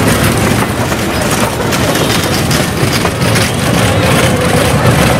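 Toy ride train running along its track, a steady engine drone with a few clicks from the moving carriages.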